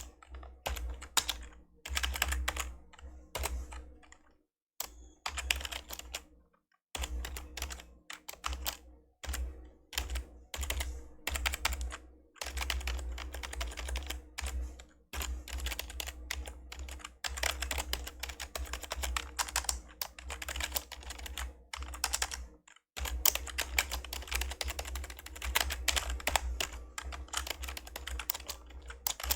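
Fast typing on an old membrane computer keyboard: dense runs of soft key clicks with brief pauses between bursts.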